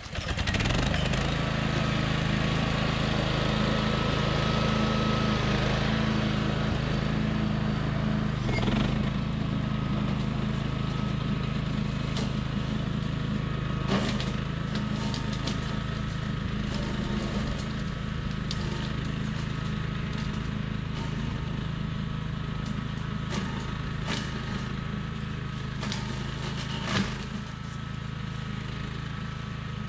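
A Billy Goat Outback walk-behind brush cutter's gas engine catches on a pull-start and then runs steadily as the cutter is driven off into brush, growing slightly fainter as it moves away. A few sharp knocks ring out over the engine now and then.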